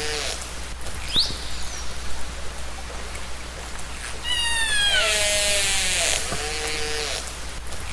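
Killer whale (orca) calls recorded underwater: a short rising whistle about a second in, then about halfway a call that falls in pitch with several overtones, followed by a dense buzzing pulsed call and a lower wavering call near the end. Steady underwater hiss and low hum run beneath.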